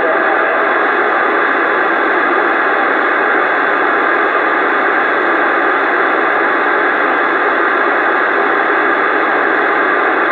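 Steady static hiss from a CB radio receiver between transmissions, with no voice on the channel.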